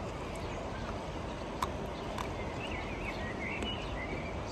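Steady outdoor background noise, with two faint clicks about one and a half and two seconds in and faint high chirping in the second half.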